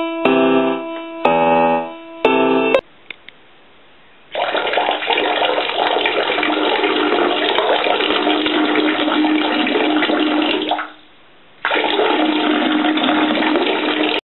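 A few keyboard-like notes, then water rushing in a bathroom in two long runs of about six and three seconds, broken by a brief pause and cut off abruptly near the end.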